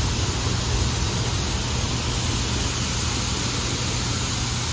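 Shelled corn pouring from a hopper-bottom grain trailer's open gate through a steel pit grate: a steady rushing hiss, with a constant low hum underneath.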